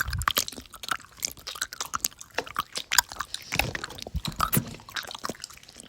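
Someone chewing close to the microphone: an irregular run of crunches and mouth clicks.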